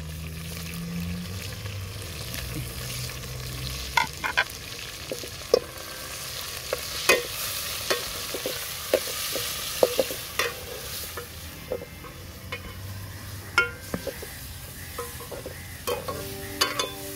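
Steel ladle scraping and knocking against a metal cooking pot as chicken with ginger-garlic paste is stirred and fried in hot oil, with a steady sizzle under irregular clinks about every second.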